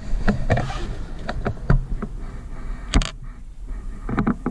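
Irregular knocks and clicks, the loudest a sharp knock about three seconds in, over a low rumble.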